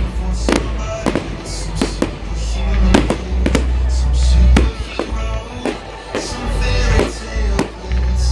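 Fireworks going off in quick, irregular succession, sharp bangs mixed with crackling bursts, over loud pop music with a heavy bass beat from a sound system.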